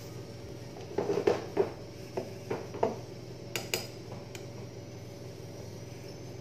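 Plastic bowls knocking on a tabletop and a pastry brush clinking in a bowl of egg wash: about ten short, light knocks in the first four and a half seconds.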